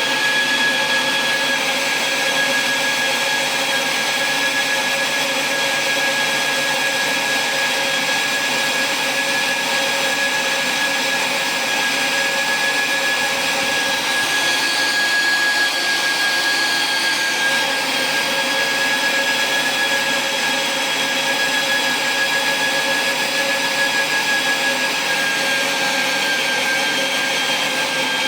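Siemens medical device running on test after repair of its circuit board: a steady motor whine with a constant airy hiss, holding an even pitch without change.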